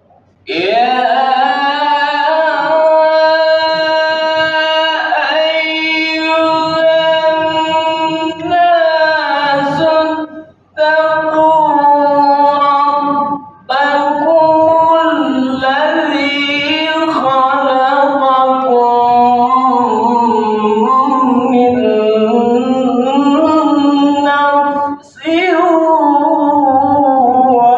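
Solo male Qur'an recitation in the melodic tilawah style, unaccompanied: long held, ornamented phrases with short breath pauses about 11, 13 and 25 seconds in. The reciter is controlling his voice through a cough and flu.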